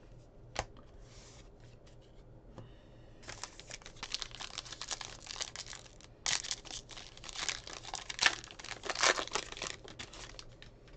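Trading-card pack wrapper being torn open and crinkled by hand, crackling in uneven bursts that start about three seconds in and grow loudest in the second half.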